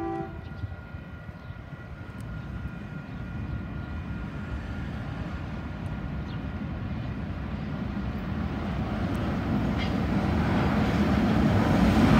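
A train hauled by a pair of KiwiRail EF-class electric locomotives approaches, and its low rumble grows steadily louder. The tail of a horn blast cuts off just after the start.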